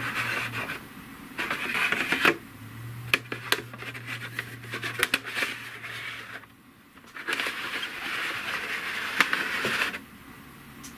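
Plastic being handled: a Lego minifigure rubbed and turned on a plastic Lego baseplate, giving scratchy rubbing in a few stretches and scattered light clicks in between.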